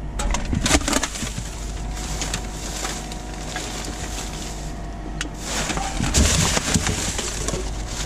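Rummaging through rubbish in a plastic wheelie bin: plastic bags and paper rustling, with sharp clatters as drink cans and a bottle are picked out. The rustling is loudest about a second in and again from about five to seven seconds in.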